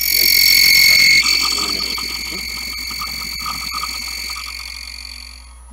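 3D Elite key machine's cutter wheel cutting the M1 calibration key in jaw 2: a high-pitched motor whine with a raspy cutting sound. It starts suddenly, is loudest for about the first second, then fades steadily over the next few seconds.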